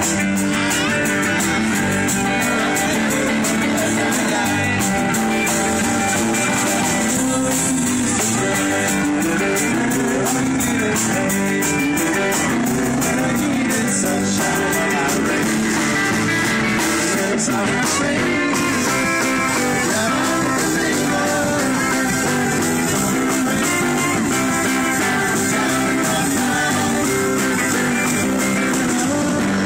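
Live band playing amplified guitars over a drum kit, a steady run of music.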